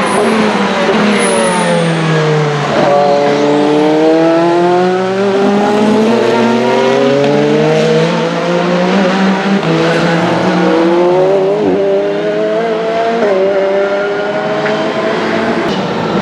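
Engine of a WEC Hypercar prototype race car on track. Its pitch drops about three seconds in, then climbs steadily through a long pull, with quick gear shifts near the end.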